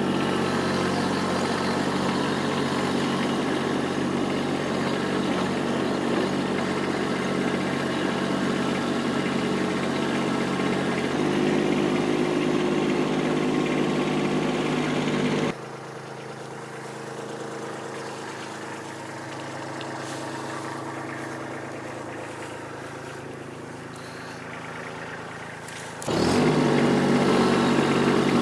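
A vehicle engine idling steadily. About fifteen seconds in, the sound drops suddenly to a quieter, lower run, then jumps back to full loudness near the end.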